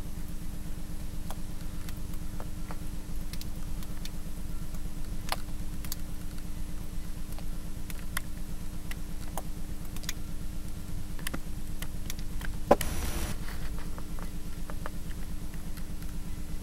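Steady low droning hum with a fast, even pulse of about four beats a second, scattered faint clicks, and one sharp knock followed by a short hiss of noise near the end.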